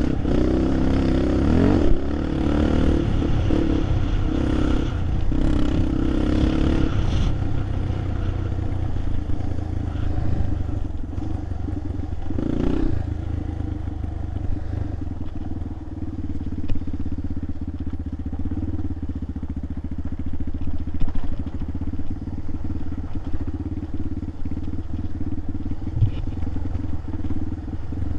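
A vehicle engine running steadily while driving a rough trail, with loose clatter and rattles over the bumps.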